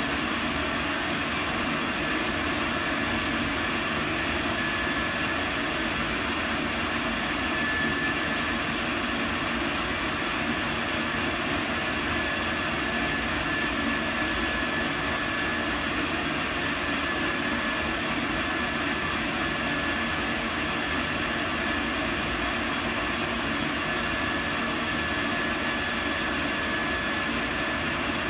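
Laser engraver running while it etches a metal slide: a steady rushing of air from the machine's fans, with a faint high whine that comes and goes.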